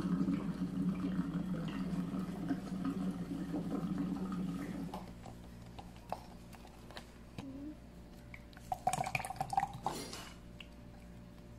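Water running from a water-dispenser tap into a plastic cup for about five seconds, then stopping. About nine seconds in, a cluster of knocks and clinks as plastic cups are handled.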